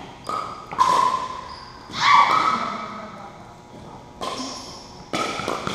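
Pickleball rally: several sharp pocks of paddles hitting the plastic ball, each with a short ringing tail, the loudest about two seconds in, echoing in a gymnasium.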